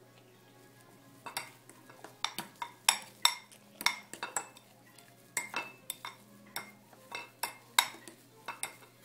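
A utensil stirring mashed potatoes in a bowl, clinking against the bowl's side in irregular sharp knocks, a few a second, starting about a second in.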